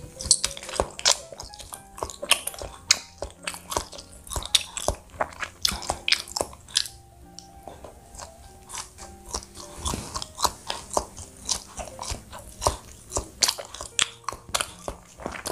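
Close-up chewing and biting of baked banana-filled cheese bread, with many quick, irregular mouth clicks. Soft background music plays underneath.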